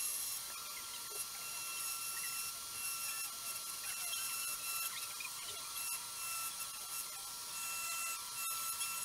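Dremel 4000 rotary tool on its flex shaft, a diamond-tip bit etching a glass wine bottle: a steady high-pitched whine with a scratchy grinding as the bit moves over the glass.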